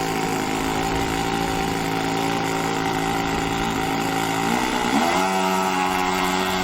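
OS 26 four-stroke glow engine on a model airplane running steadily, then revving up about five seconds in and holding at the higher speed.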